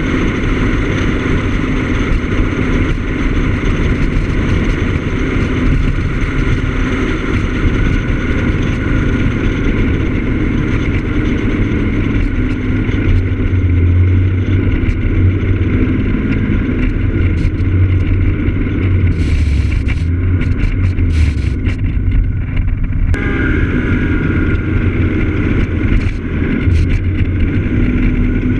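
Piaggio X9 Evo maxi-scooter's engine running under way, with the rush of wind and road noise. The engine note rises and falls as speed changes.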